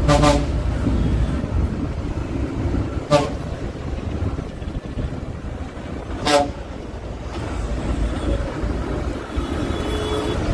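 Vehicle horn sounding three short toots about three seconds apart, over the steady low rumble of a moving bus and city traffic, heard from inside the bus.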